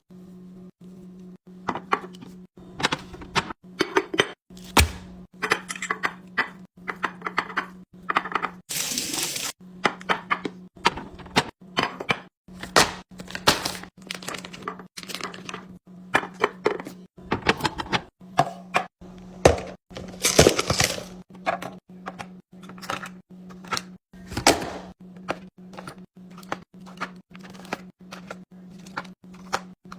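Containers and packaging being handled and set down: a steady run of irregular clicks, knocks and clinks, with short rustling bursts about nine seconds in and again about twenty seconds in, over a steady low hum.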